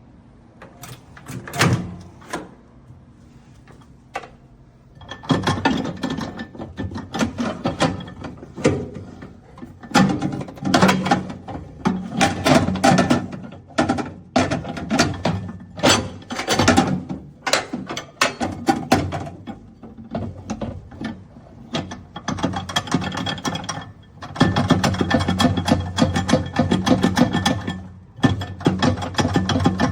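Repeated clicks, clunks and rattles of a Black+Decker microwave's push-button door release and latch being pressed and the door tugged, over a steady hum. The door is stuck shut and the release button does not open it.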